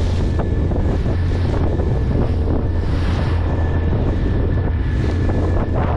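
A small fishing boat's motor running steadily under way, a constant low drone, with wind buffeting the microphone and water rushing and splashing along the hull.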